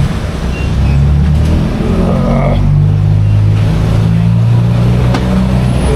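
Honda scooter's small single-cylinder engine running close up, its low hum stepping up and down in pitch a few times as the throttle is worked.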